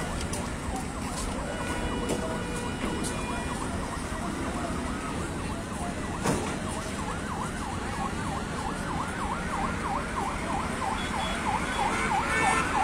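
Emergency vehicle siren in a fast yelp, about three rising-and-falling wails a second, growing louder toward the end, over steady road traffic noise.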